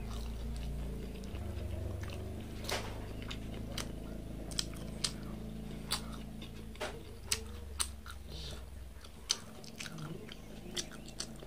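A person chewing and biting corn on the cob, with sharp crunches of the kernels about once a second.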